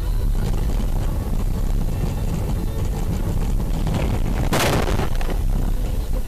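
Car cabin noise on a highway, a steady heavy road and engine rumble picked up by a dashcam, broken about four and a half seconds in by one short, loud crash of a collision that knocks the camera loose.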